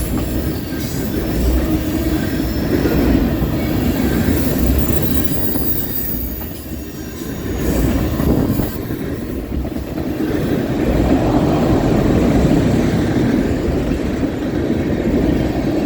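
Freight cars of a CSX mixed freight train rolling past close by: a steady rumble and clatter of steel wheels on rail that swells and eases as the cars go by, with a faint high wheel squeal in the first couple of seconds.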